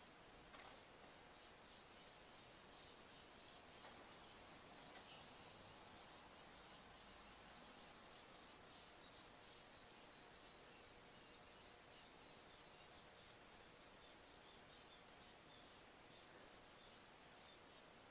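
Insects chirring: a high, fast-pulsing trill that starts just under a second in and carries on steadily.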